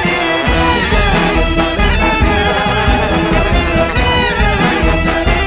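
Neo-klezmer band playing a song's instrumental intro: wind instruments carry a melody over drum kit and bass.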